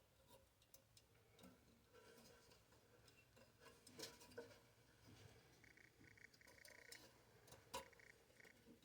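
Near silence, with a few faint plastic clicks and taps from a Kohler canister flush valve's cap being turned to line its tabs up with the notches before it locks.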